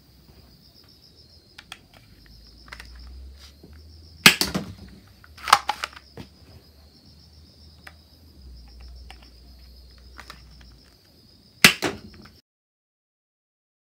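Spring-powered toy suction-dart shotgun firing at small plastic targets. Sharp snapping shots and dart hits come about four seconds in, again at five and a half seconds, and once more near the end, with lighter clicks and knocks between. A steady high-pitched trill runs behind.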